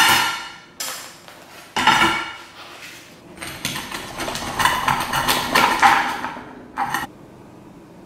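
Pizza served with metal tongs onto a ceramic plate: three sharp clinks in the first two seconds, each fading out. Then a pizza wheel rolls and scrapes across the crust and the plate for about three seconds, and one short clink follows near the end.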